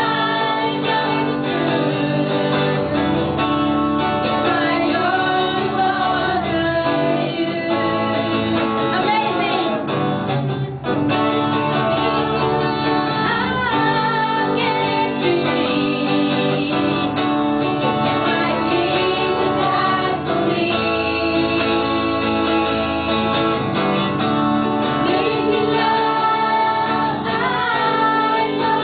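A woman singing a praise and worship song into a handheld microphone, with instrumental accompaniment underneath.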